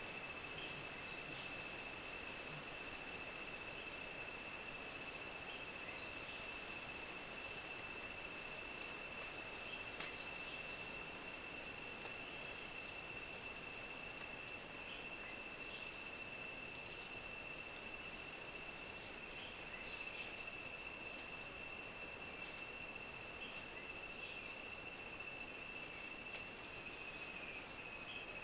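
Steady chorus of insects in tropical forest, two high buzzing tones held without a break, with short faint chirps now and then.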